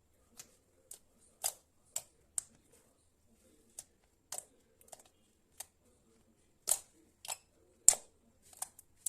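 Fluffy slime being handled, giving about fifteen short, sharp pops and clicks at irregular intervals, the loudest about eight seconds in.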